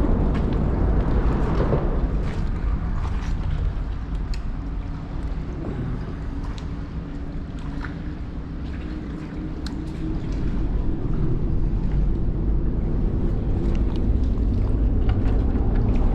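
Wind buffeting the microphone in a low, steady rumble that eases for a few seconds midway, with a faint steady hum underneath.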